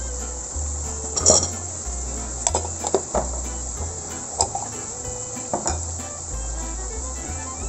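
Mapo tofu simmering in a wok with a steady sizzling hiss, and a handful of sharp clinks and knocks of kitchen utensils scattered through it.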